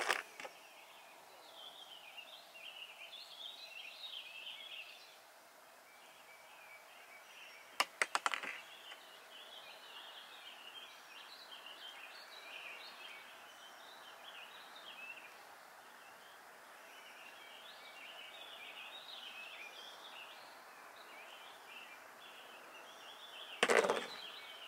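Air rifle magazines and pellets being handled while loading: a quick run of sharp clicks about eight seconds in and a louder clack near the end. Birds chirp steadily in the background over a constant hiss.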